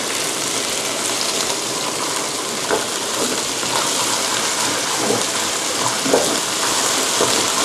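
Pounded chilli, garlic and shrimp paste sizzling and bubbling in hot oil in a wok after a splash of water, stirred with a spatula. A steady hiss with a few faint strokes of the spatula.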